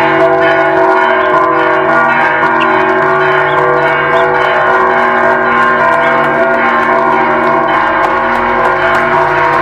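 Church bells ringing continuously, many sustained tones overlapping into a steady wash of ringing.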